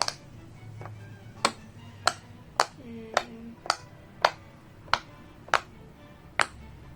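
Silicone Pop It fidget toy bubbles pressed one after another, giving about ten sharp pops spaced roughly half a second apart.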